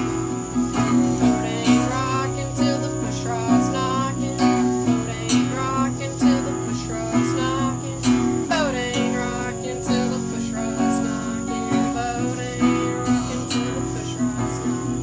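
Acoustic guitar strummed and picked in a steady rhythm, without singing.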